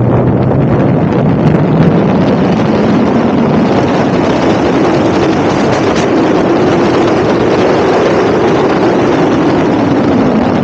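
Honda S2000 four-cylinder engine on individual throttle bodies running hard, its note climbing in pitch over the first half and easing back down near the end. Heavy wind buffeting on the microphone runs over it.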